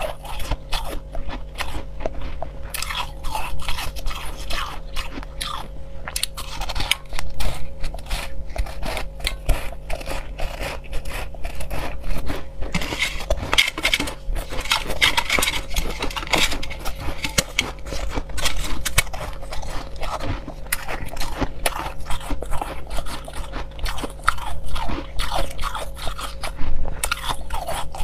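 Pink crushed ice being bitten and chewed close to the microphone: a dense run of crisp crunches. Around the middle, fingers dig and scrape the ice in a stainless steel bowl.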